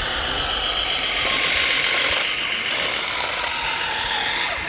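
Radio-controlled scale six-wheel dump truck driving on gravel, its electric drive and gearbox giving a steady mechanical whir.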